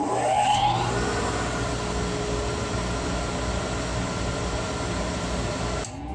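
A 2 HP Harbor Freight dust collector with its stock 10-inch forward-vane impeller spinning up with a rising whine, then running steadily at full speed, loud enough to read about 74 dB on a meter. Near the end the sound dips and a fresh spin-up begins.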